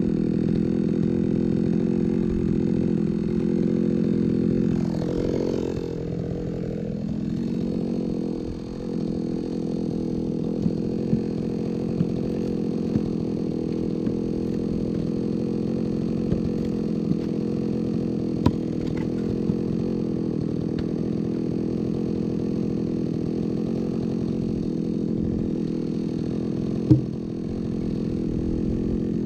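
Chainsaw engine idling steadily, its pitch dipping and swinging briefly about five to eight seconds in. A few light ticks and one sharp knock near the end.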